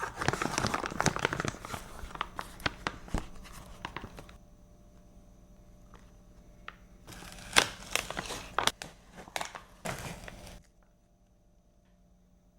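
Close-up crinkling and crackling of packaging being handled, full of sharp little clicks. It comes in two spells: a first of about four seconds, then after a pause a second of about three and a half seconds that stops well before the end.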